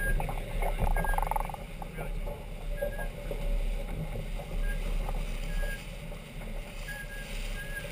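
Wind buffeting the microphone over a steady rush of water along the hull of a Farr 40 racing yacht under sail.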